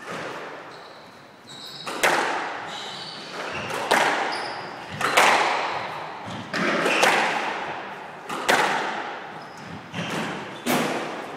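Squash rally: the ball cracking off rackets and the court walls, a sharp echoing hit every second or so, with short squeaks of court shoes on the wooden floor between the hits.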